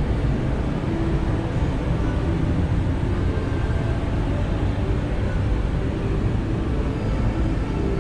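Steady low rumble of background noise, even throughout, with no distinct knocks or footsteps standing out.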